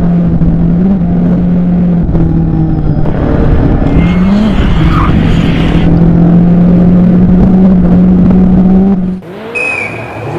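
Rally car engine running hard at high, nearly constant revs, with tyre and road noise, for about nine seconds; the pitch steps up briefly a couple of times. Near the end the sound cuts off abruptly to a quieter, different car scene.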